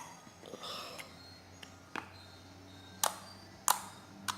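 Slime being played with by hand, giving a few sharp clicking pops: one at the start, then about two, three and four seconds in.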